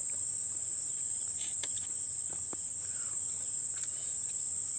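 Crickets chirring as a steady high-pitched chorus, with a few faint clicks.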